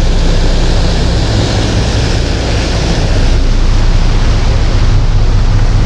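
Boat's engines running steadily underway at trolling speed, a low steady hum under the loud rush of the churning wake and wind.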